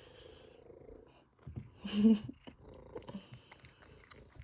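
Domestic cat purring, with one short, louder sound about two seconds in.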